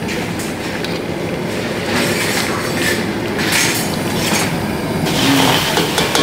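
Steady rushing roar of gas stove burner flames under a wok and a cooking pot, with a few light clinks of a metal ladle against aluminium pans.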